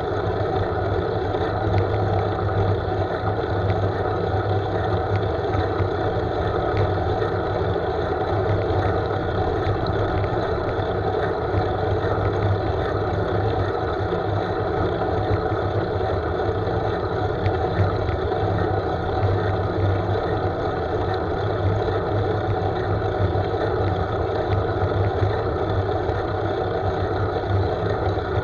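Steady rushing wind and road noise on the microphone of a camera riding on a moving road bike, with tyres running on asphalt and no change throughout.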